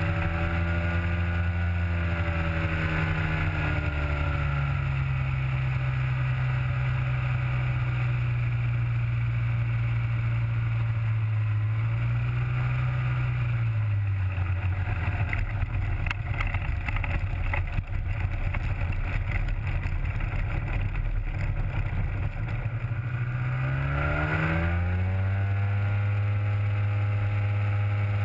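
Rotax 503 two-cylinder two-stroke engine turning a three-blade propeller on an ultralight while taxiing. It eases down about four seconds in, holds steady, rises and falls briefly around halfway, then is throttled up sharply near the end.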